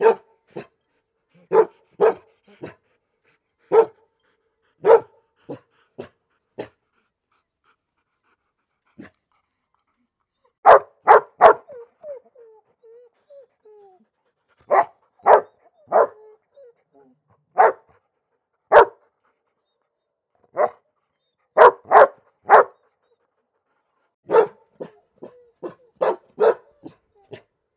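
Dog barking in short, sharp barks, some single and some in quick runs of two or three, with pauses of a few seconds between groups. Faint whining comes in one of the pauses, about twelve seconds in.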